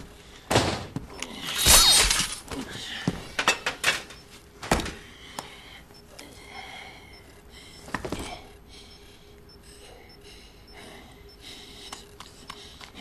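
A run of heavy thuds and crashes as a man bangs about and strikes furniture and equipment, the loudest a ringing crash about two seconds in. More blows follow at about three, four, five and eight seconds, then quieter movement.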